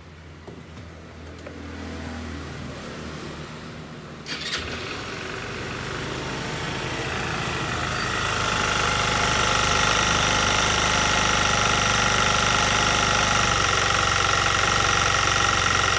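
Kymco Many 110 scooter's single-cylinder engine started with a click about four seconds in, then running, growing louder over several seconds and settling into a steady run with a high whine.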